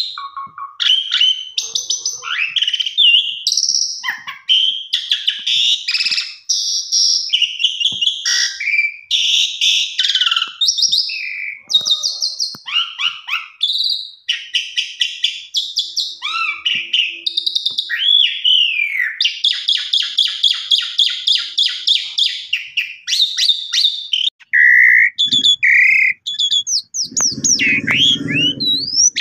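Javan pied starling (jalak suren) singing a long, varied song: whistled slurs and glides mixed with fast rattling, chattering trills, phrase after phrase without a break. Near the end a low rumbling noise comes in under the song.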